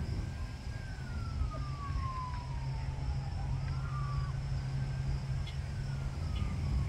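Emergency vehicle siren in a slow wail: a falling tone, a brief rise about halfway through, then falling again. A steady low hum runs underneath.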